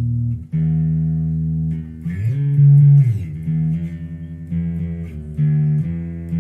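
Electric bass guitar played through a Fender Rumble LT25 bass amplifier: held notes, then a slide up about two seconds in and back down a second later, followed by a run of shorter notes.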